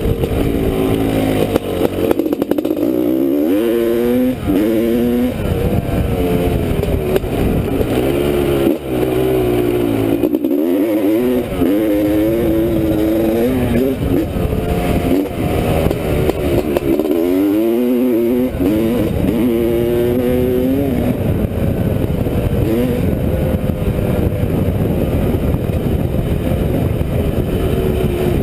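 1985 Honda CR500's 500 cc two-stroke single-cylinder engine pulling the bike across rough ground, its pitch climbing and dropping back again and again as the throttle is opened and shut.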